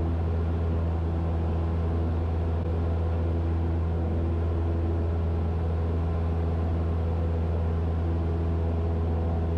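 Cessna 172's piston engine and propeller droning steadily in the climb, heard from inside the cabin: an even low hum with a row of overtones above it.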